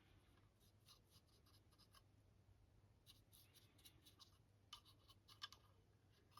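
Faint scratchy strokes and dabs of a paintbrush working a wash over a resin 3D-printed figure, in quick clusters that come and go, over a faint steady low hum.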